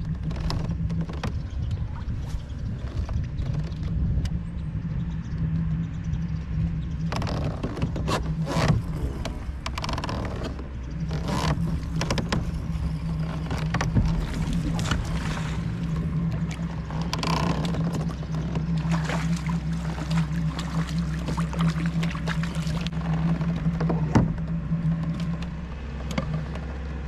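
A steady, low motor hum from the kayak's drive, which drops out for a moment about ten seconds in and stops near the end. Over it, from about a quarter of the way in, come irregular splashes and knocks while a bass is fought on rod and reel.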